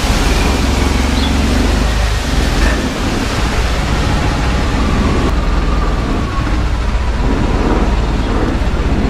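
Boat engine running steadily under way, with a low drone under a loud, even rushing of wind and water.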